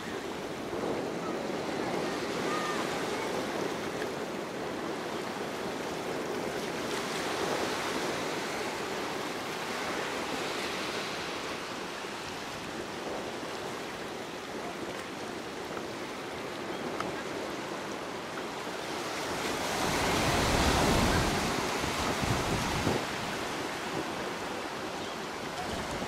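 Surf washing on a rocky beach, a steady noise of breaking waves, with wind buffeting the microphone and growing louder for a few seconds about twenty seconds in.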